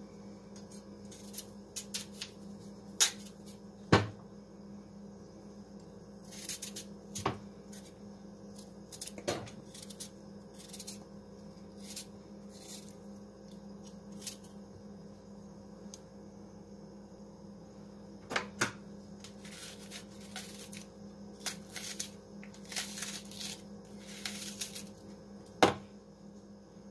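A kitchen knife slicing a raw white onion held in the hand, with irregular crisp snaps as the blade cuts through and chunks drop into a bowl of seasoned chicken. A steady low hum runs underneath.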